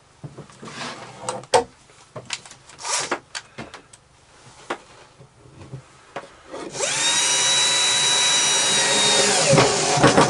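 Scattered knocks and clicks of wooden strips being handled, then, about two-thirds of the way in, a cordless drill driver runs steadily for about three seconds, fixing a pine cleat strip inside a cabinet.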